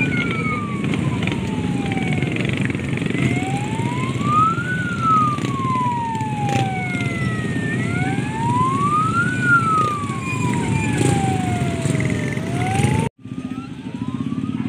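Hearse van's siren wailing in a slow rise and fall, about one cycle every five seconds, over the low running of motorcycle engines. The sound drops out for a moment about 13 seconds in, then the wail resumes.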